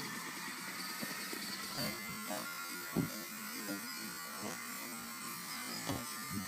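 Steady background hum with faint, indistinct voices, broken by two short sharp knocks about three seconds in and again near the end.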